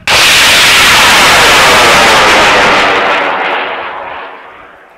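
High-power rocket motor igniting and lifting off: a sudden loud roar that holds steady for about three seconds, then fades away as the rocket climbs.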